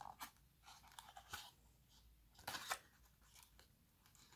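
Faint crinkling and scraping of a cardboard processor insert being turned and worked open in the hands, in a few short rustles, the loudest about two and a half seconds in.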